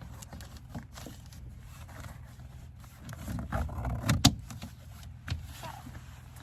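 Window covers made for a Honda Fit being handled and fitted against the car's windows: rustling and scattered clicks, with one sharp click about four seconds in as a cover clicks into place.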